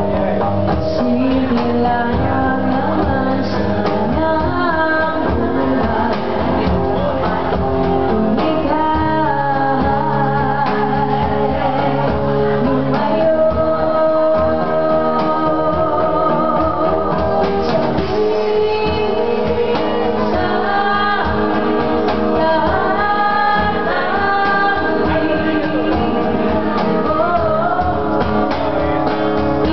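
A live acoustic band playing a song: a singer's voice over guitar, with hand-drum percussion keeping the beat.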